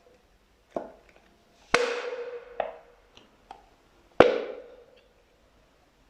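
Fluffy slime being pressed and squeezed, giving a series of about five sharp pops, each with a short ringing tail. The loudest pop comes about four seconds in.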